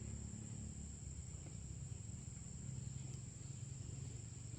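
Insects chirring in a steady, unbroken high-pitched drone, over a low steady rumble.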